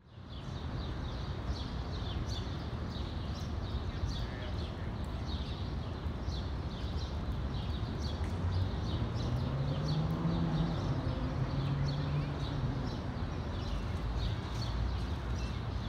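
Outdoor park ambience: small birds chirping over and over above a steady low rumble of distant city traffic. In the middle a low engine hum swells and fades, a vehicle passing.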